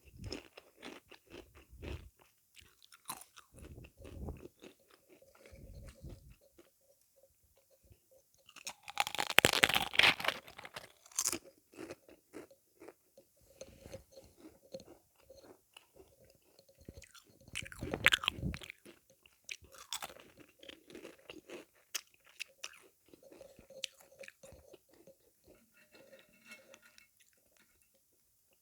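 Close-up eating sounds of sweets being bitten and chewed: scattered small clicks and crunches, with two loud crunchy bites about nine and eighteen seconds in.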